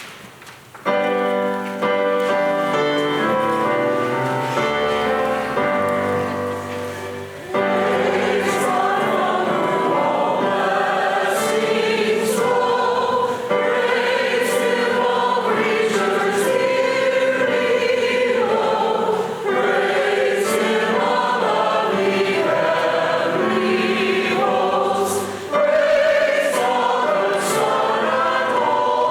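A group of voices singing a hymn with accompaniment. The first seven seconds or so are held chords, and then the singing comes in fuller.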